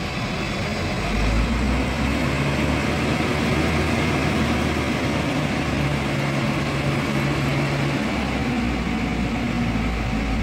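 Diesel engine of a truck-mounted crane running steadily to power the crane as it lifts, a low hum that gets louder about a second in.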